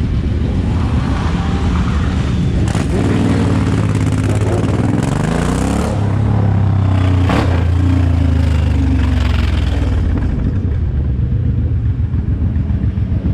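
Suzuki M109R's big V-twin running under a rider, accelerating with the engine pitch climbing for a few seconds, then holding a steady low rumble. Near the end it eases off into a loping, pulsing beat.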